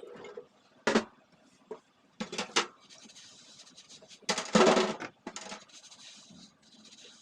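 Hard kitchen items clattering and scraping against one another while they are handled, in a short sharp knock, a quick cluster of knocks, then a louder, longer clatter about four and a half seconds in, followed by light scraping.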